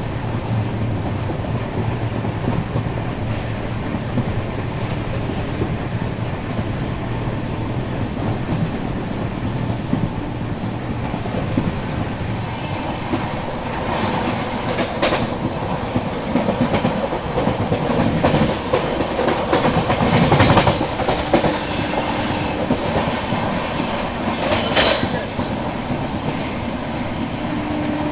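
Passenger train running, heard from on board: a steady rumble of wheels on track with clickety-clack over the rail joints. There are several louder clattering strokes in the second half.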